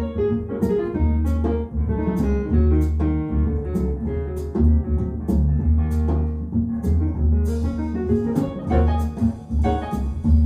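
Jazz recording played back over B&W 802D3 floor-standing loudspeakers: piano, double bass and drum kit, with a steady repeating bass figure and regular cymbal strokes.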